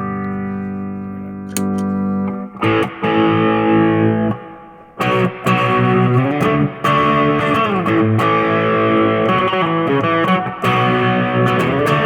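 Electric guitar played through a Notaklon (Klon-style) overdrive pedal into a Roland Micro Cube RX amp, set to a clean black-panel Fender model with a little reverb. A chord rings out, then a picked riff with string bends follows, with a slightly gritty, overdriven edge.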